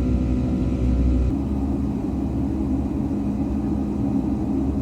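Steady rumble and hum of a Boeing 757-300 jetliner's engines. The low hum changes abruptly about a second in.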